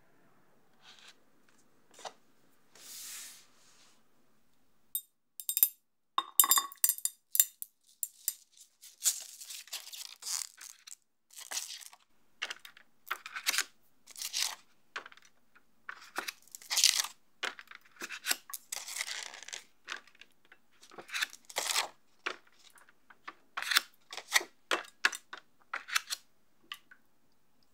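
Stiff sheets of leaf gelatin crinkling and snapping as they are broken up by hand and dropped into a glass bowl of water: a long run of sharp, papery crackles. In the first seconds there is a faint scrape of a spatula smoothing mousse.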